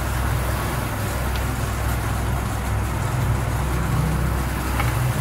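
Steady low hum under an even hiss, with a couple of faint clicks, one about a second in and one near the end.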